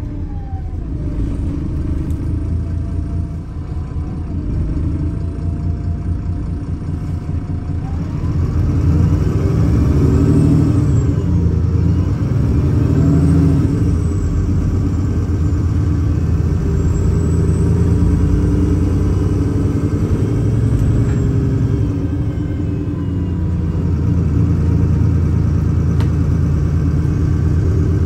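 VDL SB200/Wright Pulsar single-deck bus heard from inside the saloon: the engine and drivetrain drone steadily, with a whine that glides up and down, and the sound grows louder about eight seconds in.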